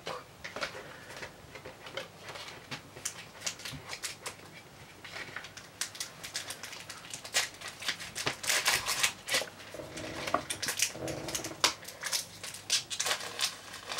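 Pokémon booster pack and its plastic blister sleeve being handled and opened: a scatter of crinkling crackles and small taps, thicker in the second half.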